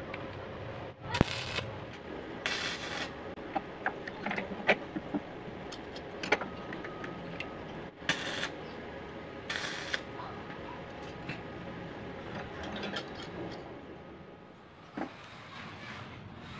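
Arc welder tack-welding a steel swing-arm bushing onto hollow steel tube: several short crackling bursts of arc, each under half a second. Between them come clinks and knocks of metal parts being handled.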